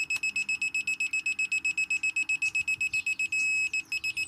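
Digital torque adapter beeping rapidly, about eight high beeps a second, while a wheel nut is turned with a breaker bar through it. A little past three seconds in, the beeping merges into one steady tone, then breaks off briefly and resumes. This is the adapter's alert that the applied torque is near its set value.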